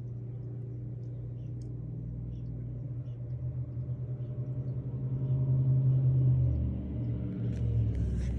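A steady low hum with a few even overtones, swelling about five seconds in and easing near the end.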